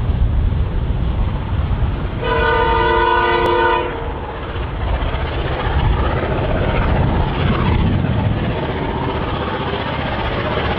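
A distant diesel freight locomotive sounds its horn about two seconds in: one chord-like blast lasting under two seconds. Around it is a steady low rumble of wind on the microphone and the approaching train.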